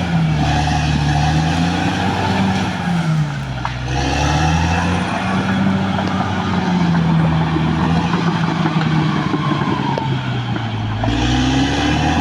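Caterpillar D6R XL bulldozer's diesel engine working under load, its pitch sagging and recovering twice as the load changes.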